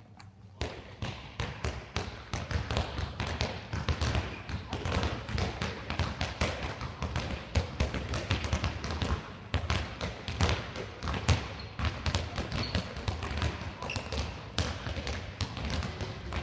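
Handballs bouncing on a sports-hall floor and being caught, mixed with players' running footsteps: many quick, overlapping thuds and taps. It starts suddenly about half a second in, in a large hall.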